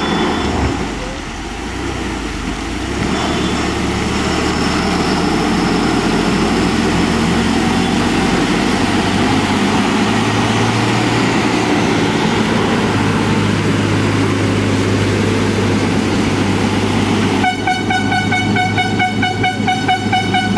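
Diesel engine of a heavily loaded multi-axle lorry labouring steadily in a low gear as it climbs a steep hairpin and passes close by. Near the end a pulsing horn sounds over the engine for about three seconds.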